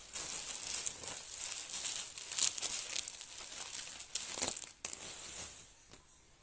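Clear plastic bag crinkling loudly as it is handled, a dense run of crackles with louder bursts about two and a half and four and a half seconds in, dying away near the end.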